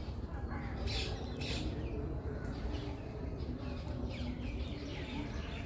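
Small birds chirping, many short high chirps overlapping one another over a steady low rumble.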